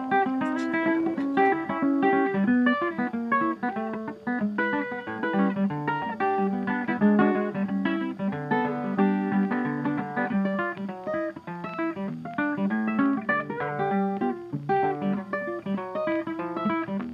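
Background music: a guitar playing a quick run of plucked notes.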